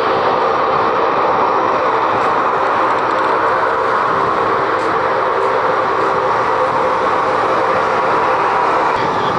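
Aircraft engines running, a loud steady rushing noise with a faint steady hum beneath it.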